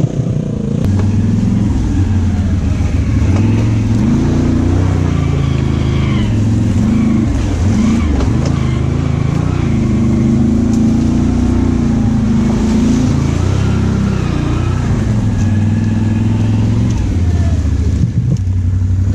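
ATV engine running close by under way, its speed rising and falling with the throttle.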